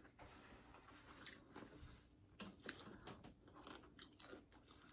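Close-up eating sounds: loaded nachos being bitten and chewed, with scattered crunches of tortilla chips.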